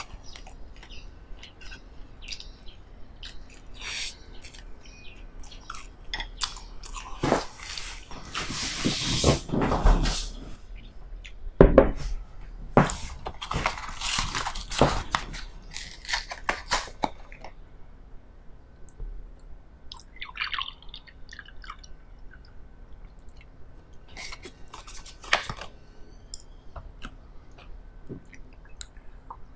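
Close-up eating sounds: bites and chewing of a slice of soft raisin bread spread with jam, with crackly bursts at about seven and twelve seconds in. Scattered light clicks and knocks of tableware and a glass on the table run between them.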